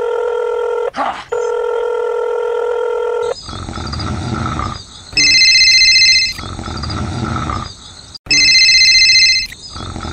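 Electronic telephone sound effects: a steady tone with a brief break about a second in, then from about three seconds in a rough growling sound, with a phone ringing over it twice, each ring about a second long.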